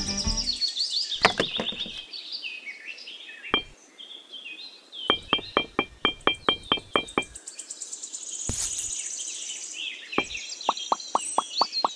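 Birds chirping and singing, with two runs of quick, light clicks at about five a second: one about five seconds in, and another near the end.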